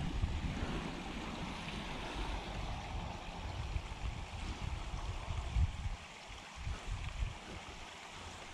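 Steady hiss of a flowing creek, under an uneven low rumble of wind on the microphone that dies down about six seconds in.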